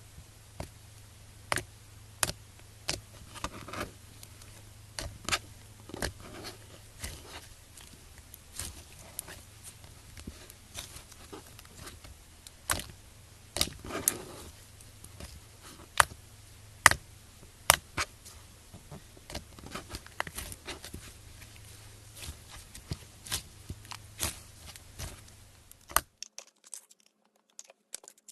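Slime being squeezed and worked by hand, giving sharp, irregular clicks and crackly pops, some much louder than others, over a low steady hum. Near the end the hum drops away and the clicks become fainter and sparser.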